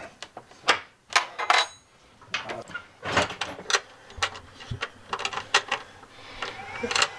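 A wrench and cable lugs clicking and knocking against the metal terminal studs of a battery wiring block as heavy battery cables are bolted on, in an irregular string of sharp clinks.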